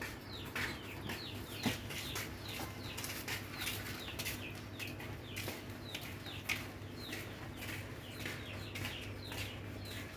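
Birds chirping: many short, high chirps, each falling in pitch, repeating several times a second throughout, over a steady low hum.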